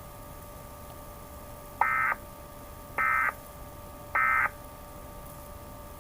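Three short bursts of Emergency Alert System end-of-message (EOM) data tones, the raspy digital SAME signal, each about a third of a second long and about a second apart, marking the end of the alert. A faint steady hum runs underneath.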